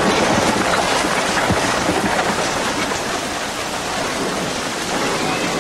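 Heavy, steady rain pouring down.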